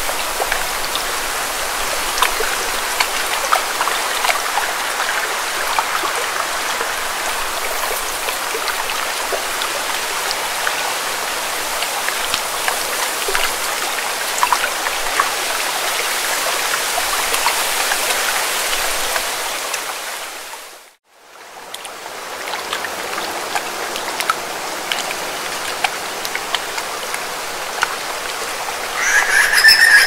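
Lake water lapping on rocks: a steady wash of small splashes and drips. About two-thirds of the way through it fades out to silence and fades back in. Near the end, birds start calling loudly with high, wavering chirps.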